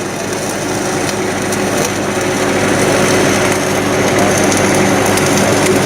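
MIG welding arc crackling and sizzling steadily as the wire feeds and a bead is run along a practice coupon, growing a little louder about a second in, with a steady low hum underneath.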